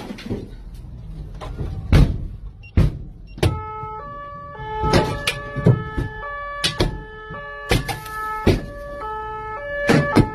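Sharp knocks and bangs, then about three and a half seconds in a two-tone siren starts, switching back and forth between two pitches, with more bangs over it. Heard from inside a car.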